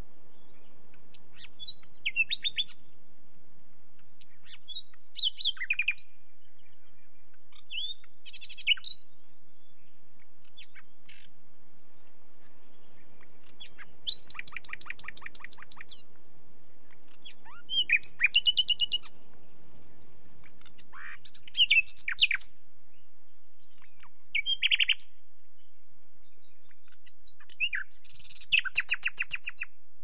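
Nightingale singing: about eight short, varied phrases separated by pauses of a few seconds. Several phrases are fast runs of repeated notes; the longest run lasts about two seconds halfway through, and a loud phrase comes near the end.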